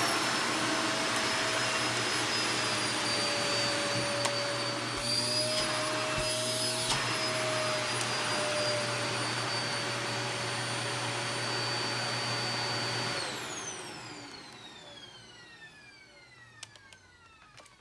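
Vacuum cleaner running steadily with a motor whine over rushing air. About 13 seconds in it is switched off, and the whine falls in pitch as the motor spins down to a stop.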